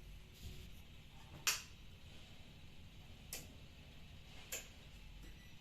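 Three sharp clicks, a second or two apart and the first the loudest, made while switching the air conditioner on.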